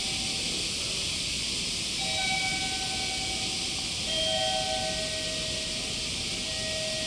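Steady high hiss of a summer cicada chorus, with a few faint held tones at different pitches over it.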